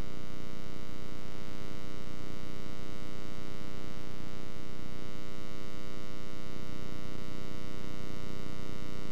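Steady electrical buzz with many overtones and no change in level: the hum of a blank video playback signal after the recording ends.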